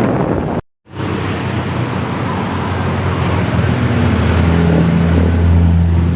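Large bus diesel engine running with a deep, steady drone over road traffic noise, swelling louder from about four seconds in. The sound cuts out completely for a moment just before one second in.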